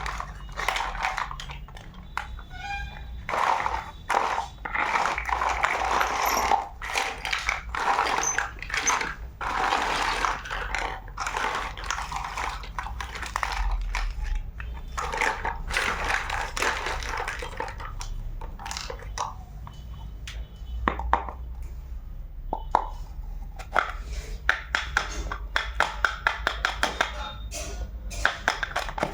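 Plastic packaging rustling and crinkling, then many quick clicks and taps of small plastic toy kitchen pieces being handled.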